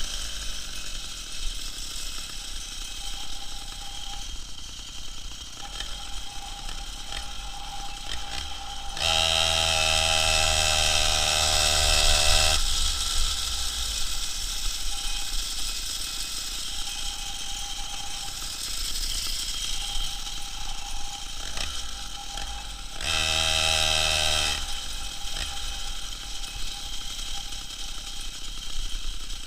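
Two-stroke chainsaw engine on a homemade moped running at idle, revved up twice: a longer burst of a few seconds about a third of the way in and a shorter one later.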